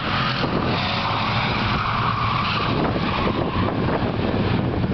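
Race car's engine running steadily as the car drives around a speedway track.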